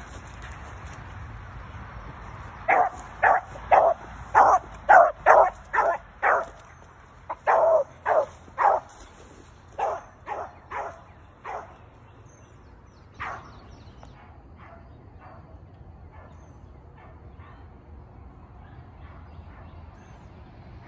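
A beagle baying as it runs a rabbit on its scent line: a quick series of loud barks, about two a second, beginning about three seconds in. From about ten seconds on they come fewer and fainter.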